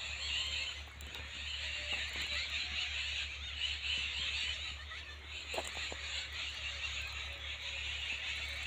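A dense, steady, high-pitched chorus of calling animals, unbroken throughout, over a low steady rumble, with a couple of faint knocks about five and a half seconds in.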